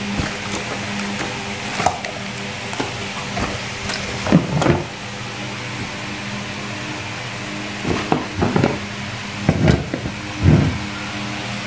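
Handling sounds of an automatic rice cooker and its cardboard box as the cooker is lifted out and set down: several knocks, bumps and rustles, the loudest cluster coming near the end, over a steady low background hum.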